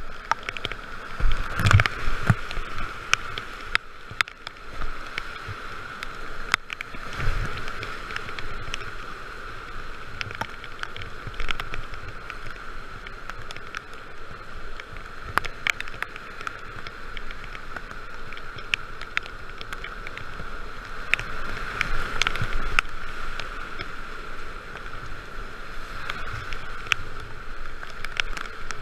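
Whitewater rapids rushing around a kayak as it runs the river: a steady wash of water with frequent short, sharp splashes, the loudest about two seconds in.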